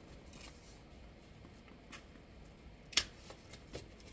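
Faint handling of a cardboard advent calendar box as a day's compartment is opened, with one sharp click about three seconds in and a few light ticks after it.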